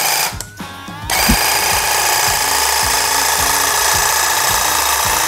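Einhell cordless hedge trimmer running with a steady, dense buzz of its reciprocating blades, switched on about a second in, over background music with a steady beat.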